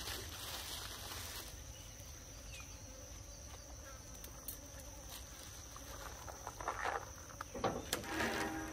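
Insects buzzing with one steady high-pitched tone. Near the end come a few short sharp clicks and rustles, and a brief pitched sound just at the end.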